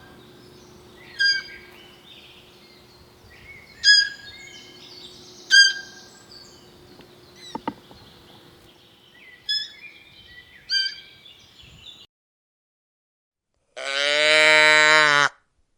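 A bird giving short, sharp calls every second or two. After a brief silence near the end, a cow moos once, loudly.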